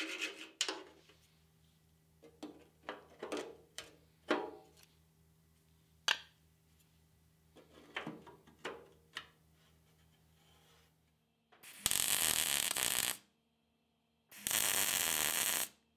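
Two short bursts of MIG welding, each a little over a second, near the end, tacking a steel patch panel onto a Land Rover chassis rail. Before them, scattered scrapes and clicks of metal being handled.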